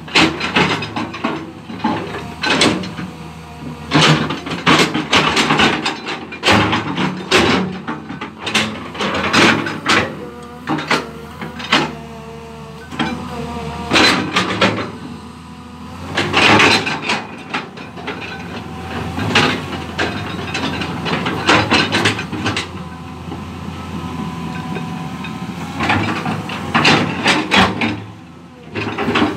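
Komatsu crawler excavator's diesel engine running steadily as it works rocky ground, with frequent sharp clanks and knocks of steel on stone.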